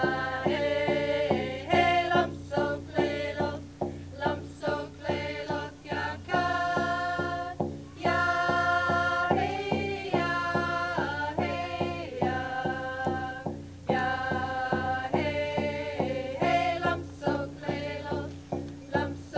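Music with singing voices holding long notes over a steady beat, about three beats a second.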